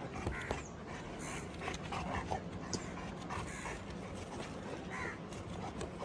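A tired Saint Bernard panting as it is helped up stone steps, with crows cawing now and then in the background.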